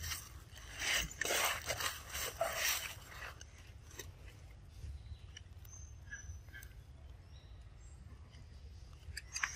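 Dry leaf litter crunching and rustling in short bursts as macaques shift and move over it, then a low, steady outdoor background.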